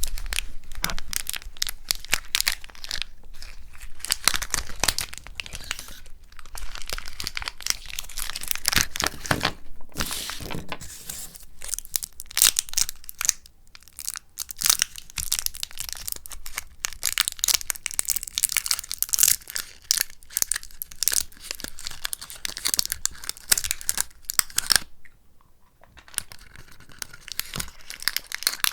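Close-miked crinkling and tearing of packaging: a dense run of crackles with a brief lull near the end.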